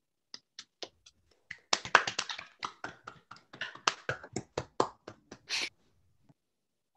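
Scattered hand clapping from a few people on a video call: irregular sharp claps, sparse at first, thicker from about two seconds in, and stopping near six seconds.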